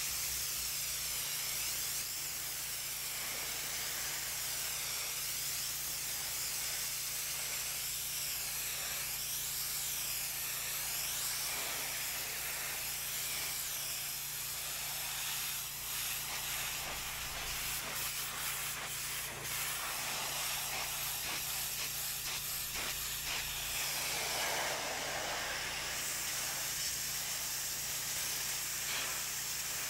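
Pressure washer spraying water: a steady hiss over a low, steady hum.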